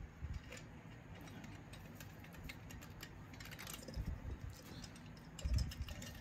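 Faint metallic clicks and handling noises as a piston and finned cylinder barrel are fitted over the studs onto an air-cooled VW engine case, with a couple of dull low thumps in the second half.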